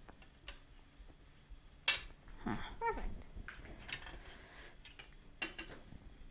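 A thin metal plate and a circuit board being handled and set down on a table: scattered light clicks and knocks, the sharpest about two seconds in. There is also a short pitched sound a little before three seconds.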